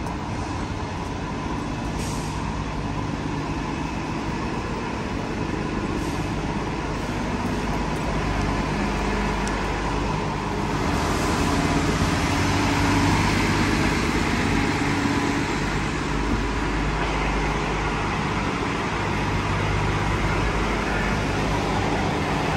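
Motor vehicle running: a steady engine hum with road noise, growing a little louder about eleven seconds in.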